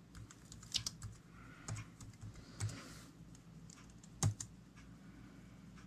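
Typing on a slim aluminium computer keyboard: scattered key clicks, with one louder keystroke a little past four seconds in.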